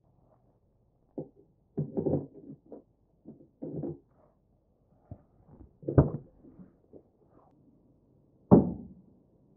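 Keys jingling and clicking in a pickup truck's door lock, the door handle and latch clacking, then heavier thuds: a loud one about six seconds in and the loudest near the end as the truck door shuts.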